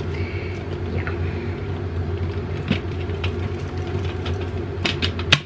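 A cyclone vacuum's plastic dust bin being knocked by hand to shake loose dust caked on its walls: scattered sharp knocks, then a quick run of louder knocks near the end. A steady low hum runs underneath.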